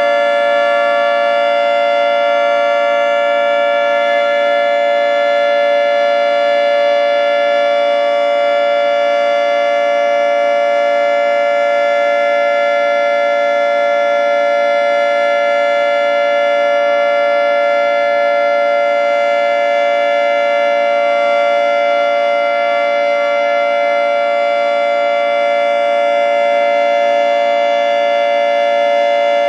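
Federal Signal 3T22 three-tone electromechanical outdoor warning siren sounding its alert signal: a loud, steady chord held without any rise or fall in pitch.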